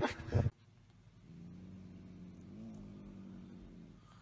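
Faint, low, drawn-out animal growl, a single steady note that rises slightly in pitch midway through.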